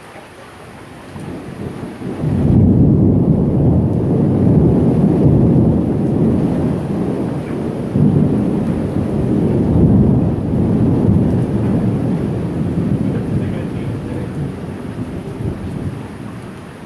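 A long low rumble of thunder over steady rain. It builds about a second in and hits hardest about two seconds in, swells again about eight seconds in, then slowly dies away near the end.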